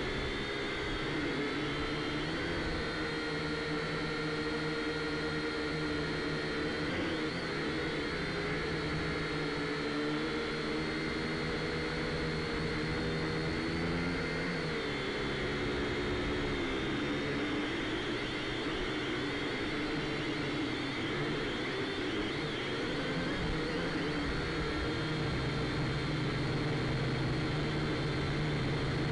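A drone's electric motors and propellers whirring in flight, a steady buzzing whine whose pitch rises and falls as the throttle changes, most clearly around 7 seconds and 14 seconds in, then holding steadier.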